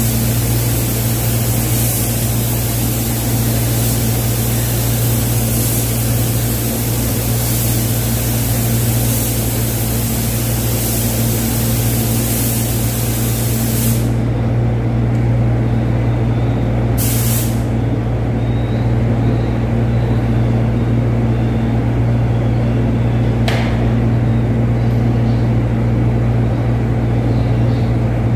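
Gravity-feed paint spray gun hissing steadily as it sprays paint onto a car panel, cutting off abruptly about halfway through, followed later by two short blasts of hiss. A steady low hum runs underneath.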